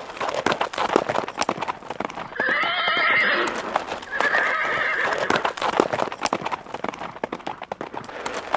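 A horse's hooves clip-clopping, with two whinnies of about a second each, a couple of seconds apart near the middle.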